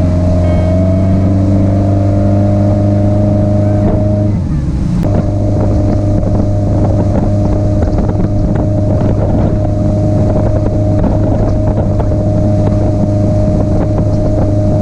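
Motorboat engine running steadily at towing speed, a constant drone with wind noise on the microphone and the hiss of the churning wake. The hum falters briefly about four seconds in.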